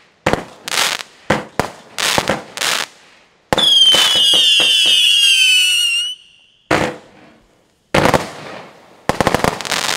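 Lesli Boa Constrictor 66-shot firework cake firing: a string of sharp shots and bursts, then a loud whistle falling slightly in pitch for about two and a half seconds. Two more shots follow, then a quick volley near the end.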